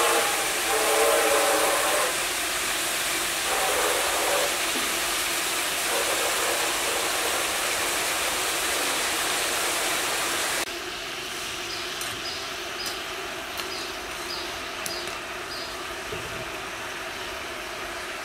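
Chopped meat sizzling in hot oil in a large steel pot as it is stirred with a metal ladle. About ten seconds in, the loud sizzle cuts off to a quieter steady hiss with faint, evenly spaced light ticks.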